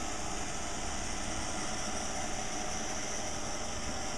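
Roomba robot vacuum running, a steady whirring hum of its vacuum motor and brushes with a high hiss.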